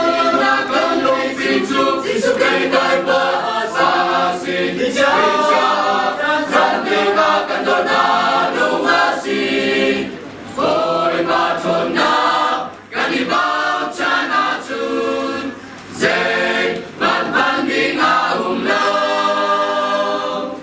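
Mixed choir of men's and women's voices singing a hymn unaccompanied, with brief breaths between phrases about halfway through and again later on.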